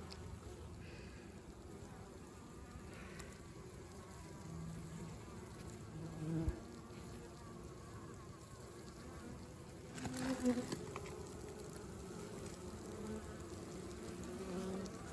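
Honeybees buzzing around a hive, with single bees humming close past now and then, one passing loudest about ten seconds in. A short sharp click about six and a half seconds in.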